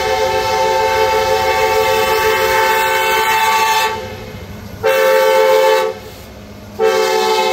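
Diesel freight locomotive's multi-chime air horn sounding for a grade crossing: a long blast of about four seconds, a short blast about five seconds in, then another long blast that carries on.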